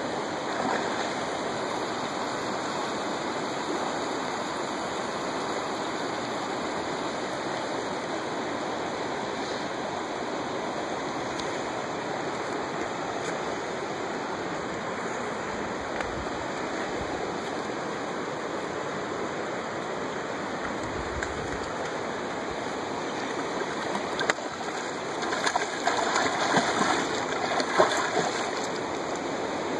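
Steady rush of flowing river water. In the last few seconds a hooked steelhead splashes and thrashes at the surface in a run of irregular splashes.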